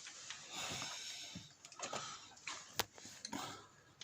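Faint, irregular clicks and light taps of hands and tools handling parts of an opened engine, with a sharper click near the end.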